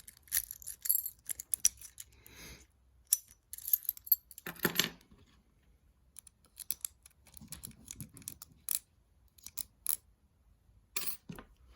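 Irregular metallic clicks, scrapes and short rattles of a disc detainer pick turning the discs inside a Zarker J45S disc detainer lock, which is still locked.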